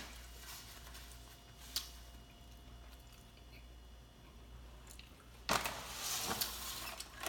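Quiet mouth sounds of chewing, with one short click about two seconds in. From about five and a half seconds, a louder rustling and scraping as a plastic bakery clamshell box of cookies is pulled across the table and handled.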